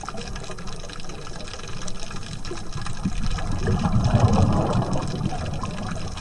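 Underwater sound of a scuba diver's exhaled bubbles from the regulator, rising in a bubbling rush from about three seconds in and easing off after about five, over a steady low rumble of the water.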